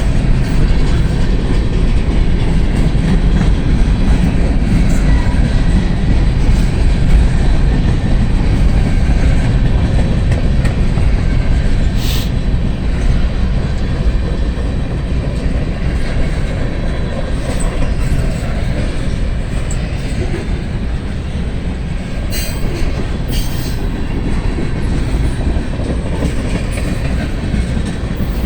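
Freight cars of a passing local freight train rolling by, wheels clacking steadily over the rails, with strong wind buffeting the microphone and a few short sharp wheel sounds near the middle and toward the end.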